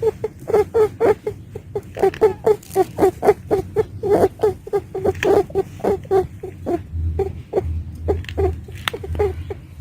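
Pet doe rabbit making a rapid, continuous series of short, squeaky sounds, about four or five a second.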